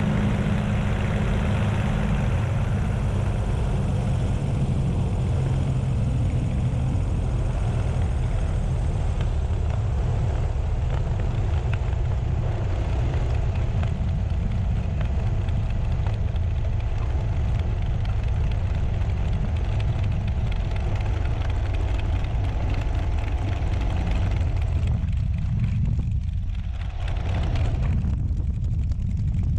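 Cockpit sound of a P-40 Warhawk's V-12 engine and propeller running at low power through the landing: a steady, heavy low drone. A rushing hiss on top fades about a third of the way in, and the sound shifts near the end as the plane rolls out on the runway.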